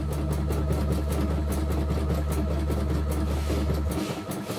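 CNY E960 computerised embroidery machine stitching: a steady motor hum under a fast, even run of needle clicks as the hoop moves. The hum drops away about four seconds in.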